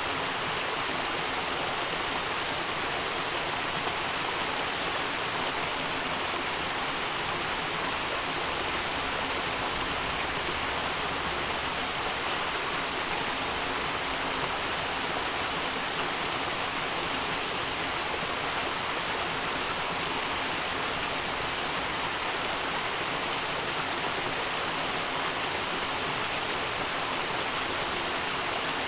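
A small wild mountain stream rushing steadily over its bed: an even, unbroken hiss of running water.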